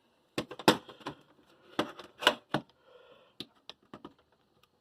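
A handful of sharp, separate plastic clicks and knocks, about eight in all, as a power cord is handled and plugged into a surge protector.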